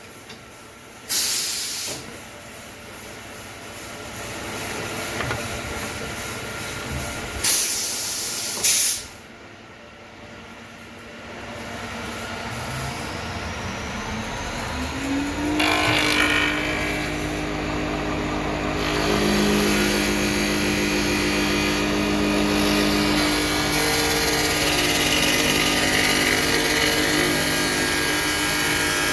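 Automatic CNC wood lathe: two short hissing blasts in the first nine seconds, then the spindle motor spins up with a rising whine about twelve to fifteen seconds in and runs steadily with the noise of the cut.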